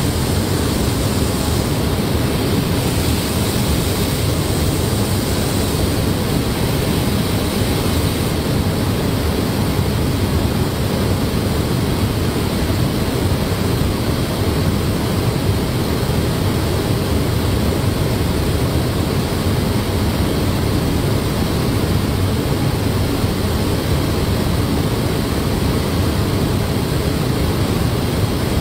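Steady, loud hissing rush of an automotive paint booth: ventilation air and the painting robots' rotary-bell spray heads applying paint to a car body.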